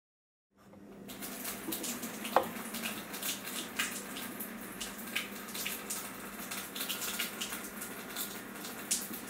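Water pouring from a tube into a plastic bucket, splashing as it fills, adding weight to load the fishing-line knot on the break-strength test jig. The pour starts about half a second in, over a faint steady hum, with one sharp click a couple of seconds in.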